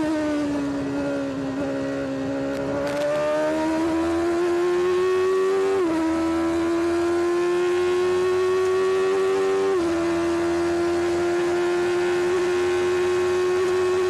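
Benetton B189 Formula One car's Ford V8 heard from onboard. The revs dip through a corner, then climb as the car accelerates hard. Two upshifts, about six and ten seconds in, each drop the pitch abruptly, and after them the engine runs near flat out in a high gear with the note almost steady.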